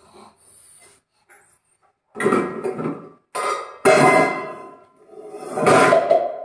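Steel pots and utensils clattering and clanking as they are taken from a steel dish rack: a few faint clinks, then four loud bursts of clatter from about two seconds in, some with a metallic ring.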